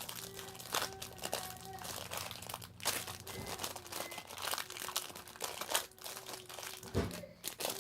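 Packaging crinkling and crackling as it is worked open by hand, with irregular small clicks and a dull thump near the end.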